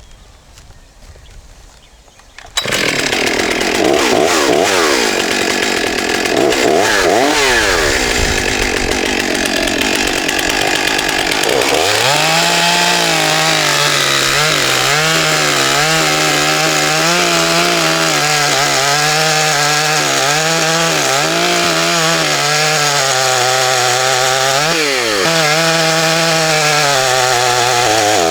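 A Stihl 661 Magnum two-stroke chainsaw cuts into a big oak log. It comes in loud and suddenly about two and a half seconds in, after a short quiet stretch. Its engine note keeps dipping and recovering as the chain bogs in the wood.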